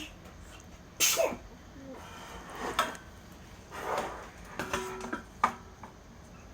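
A baby sneezing: a sharp sneeze about a second in and another near the end, with softer breathy bursts and a brief voiced sound between.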